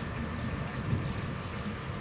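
Low, uneven rumble of a car engine idling at lowered level-crossing barriers, with wind buffeting the microphone.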